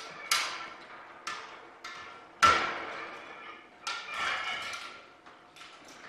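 A series of metal clanks and taps on a Bearhawk's welded steel-tube fuselage frame, each leaving a short ringing tone, the loudest about two and a half seconds in.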